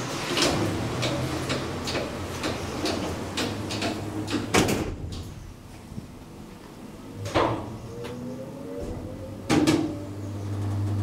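Schindler hydraulic elevator's sliding car doors closing, with several knocks and thumps, the loudest about halfway through. Near the end a steady low hum starts, the hydraulic pump motor running to move the car.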